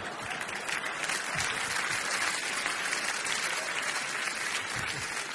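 Theatre audience applauding a stand-up comedian's joke: dense, steady clapping from a large crowd.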